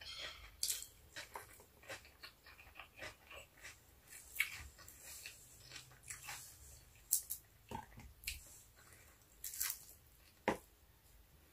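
Close-up eating sounds of someone chewing fried milkfish and rice by hand: soft irregular mouth smacks and crunches, with a few sharper clicks.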